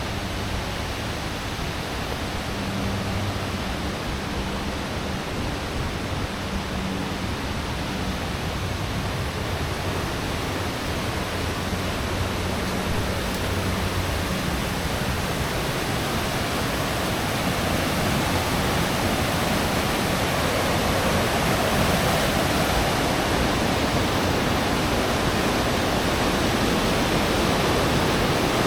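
Steady rushing water, growing gradually louder over the second half.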